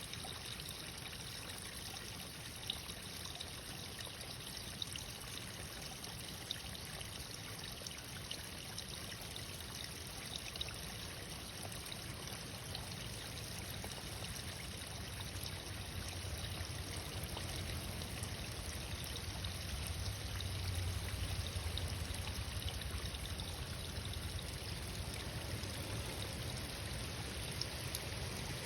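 Running water trickling and splashing steadily, like a small stream, with a low rumble that swells for a few seconds about two-thirds of the way through.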